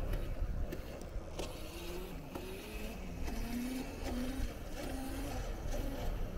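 Riding noise from electric bikes on the move: steady wind and road rumble on the microphone, with a faint whine that rises and falls in pitch through the middle and a few light clicks.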